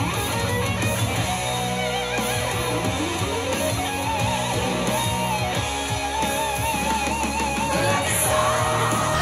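Music: an instrumental passage of a song, a guitar carrying a wavering lead melody with vibrato over steady bass.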